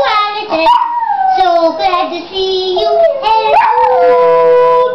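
A Chihuahua howling along with a woman who howls with it. Their long held notes slide up and down and overlap.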